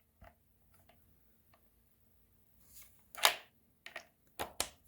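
Handling noise of a metal impact socket and a stubby impact wrench: faint clicks, then a short scraping clunk about three seconds in and a few sharp metallic clicks near the end as the socket goes onto the tool and the lug nut. The wrench is not run.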